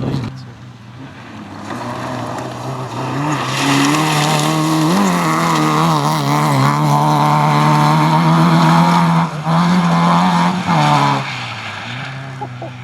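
Fiat Cinquecento Sporting rally car's tuned 95 PS engine running hard at high revs. It swells over the first few seconds, holds a steady high note, cuts out briefly twice near the end, then fades away.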